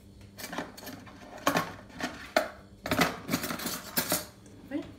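Kitchenware clinking and knocking against a stainless steel pot: a string of separate clicks, with a denser clatter about three to four seconds in, as the chocolate pudding is readied to be poured into glasses.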